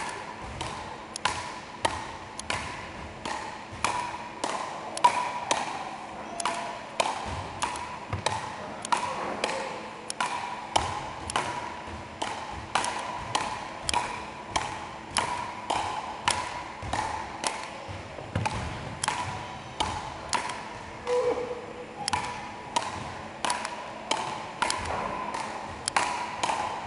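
Frescobol paddles hitting the ball back and forth in a continuous rally, a sharp knock about twice a second, echoing in a large sports hall.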